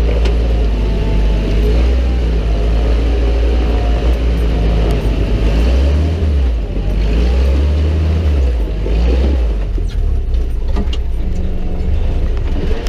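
Willys CJ2A jeep's four-cylinder flathead engine running at low speed as the jeep crawls up a rocky trail, its pitch rising and falling about halfway through. A few short knocks come near the end.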